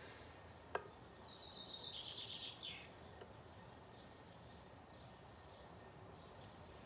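A single sharp click, then a bird's fast high trill lasting about a second and a half and stepping slightly down in pitch, over quiet room tone.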